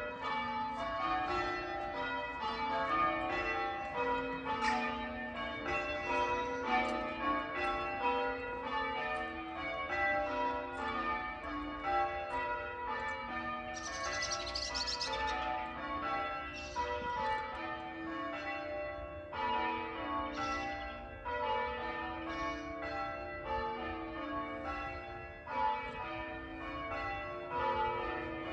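Church bells being rung in changes: a steady, unbroken run of overlapping strikes, one bell after another, each ringing on under the next.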